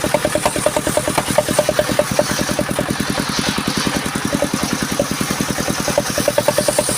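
Engine of a mobile circular sawmill running with an even chugging beat, about nine pulses a second. For a few seconds in the middle a steadier hum and hiss join in.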